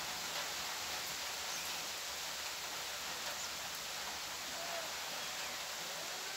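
Steady rain falling, an even hiss with no break, with a few faint bird chirps over it.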